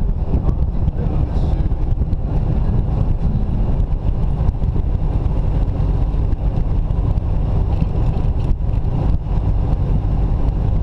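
Jeep Wrangler driving along a paved road: a steady, even rumble of wind buffeting the microphone mixed with road and engine noise.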